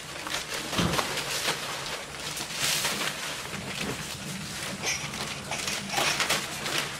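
Plastic rustling and crinkling in irregular swishes as a large black plastic bag is handled and shaken out, with a low thud about a second in.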